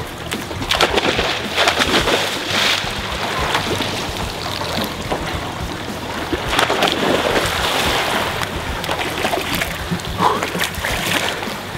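Pool water splashing and sloshing, with irregular splashes over a steady wash of water noise.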